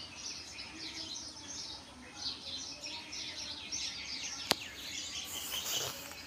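Many small birds chirping and twittering together in a dense, steady chorus. One sharp click cuts through about two-thirds of the way in.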